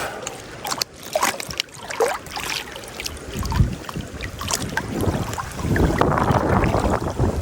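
Wind buffeting the microphone on the river, with scattered light knocks in the first few seconds; the wind rumble grows stronger and steadier about three quarters of the way in.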